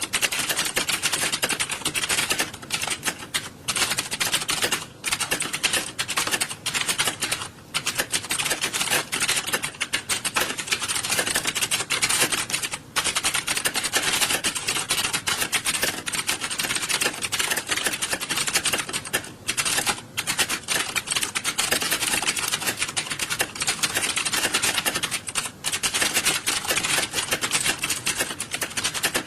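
Computer keyboards typed on fast by many people at once: a dense, continuous clatter of keystrokes with a few brief lulls.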